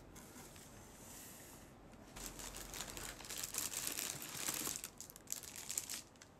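Plastic wrapping and tissue paper crinkling and rustling as a cardboard box is opened and unpacked. It grows louder about two seconds in and eases off near the end.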